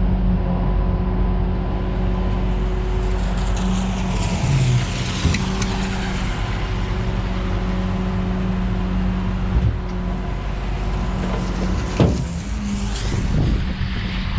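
Engine running steadily while traffic passes, with vehicles whooshing by around five seconds in and again near the end.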